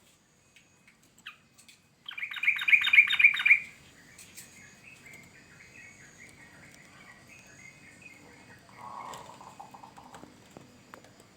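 Yellow-vented bulbul (trucukan) singing: a loud burst of rapid bubbling notes about two seconds in, followed by softer chattering. A lower, harsher call comes near the end.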